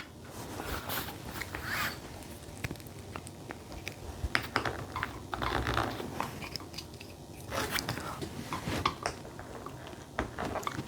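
Plastic building-brick pieces clicking, tapping and rattling as a brick-built helicopter model is handled, in scattered short clicks with some rustling.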